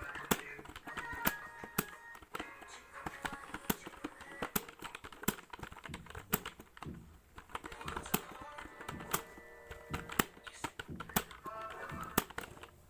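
Typing on a computer keyboard: quick, irregular keystroke clicks, several a second, over background music.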